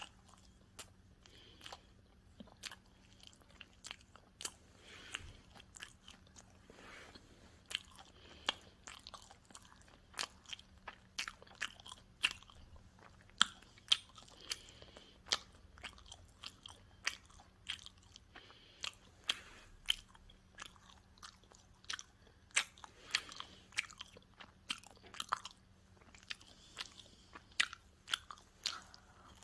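Pizza being bitten and chewed, with many sharp, irregular crunches of crust, several a second throughout.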